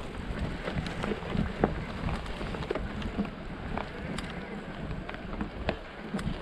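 Mountain bike being ridden over a rough trail: wind buffeting the microphone, with scattered clicks and rattles from the tyres and bike on the loose surface.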